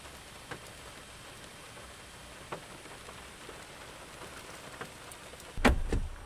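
Rain falling on a car, heard from inside the cabin: a steady hiss with scattered drops ticking on the roof and windshield. Near the end comes a loud, short thump and rustle, the car door being opened.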